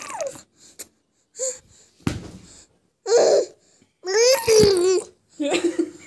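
A baby babbling and laughing in short high-pitched bursts with pauses between them. The longest and loudest burst comes about four seconds in.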